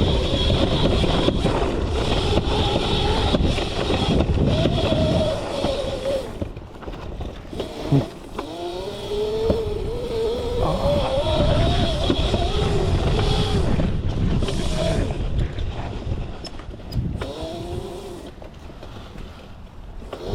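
Modified Razor MX650 electric dirt bike with an 11,000-watt brushless motor being ridden: the motor whine rises and falls with the throttle over a steady rushing noise. There is one sharp knock about 8 seconds in.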